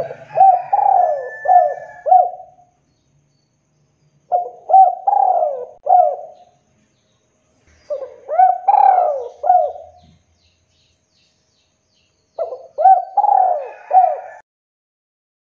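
Spotted dove (tekukur) cooing: four phrases, each a run of four or five arched coo notes, repeated about every four seconds.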